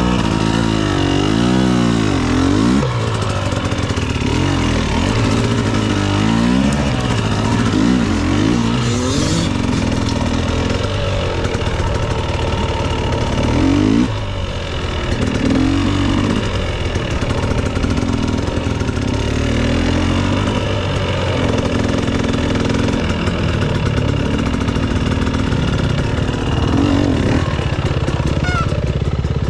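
Dirt bike engine heard from on board, revving up and down again and again as the throttle is worked over rough ground, then running more evenly with smaller rises and falls later on.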